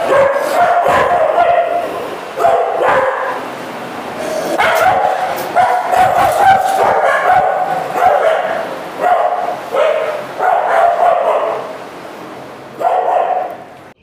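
Kennelled dogs barking and yipping in repeated bursts, easing off briefly about four seconds in and again near the end.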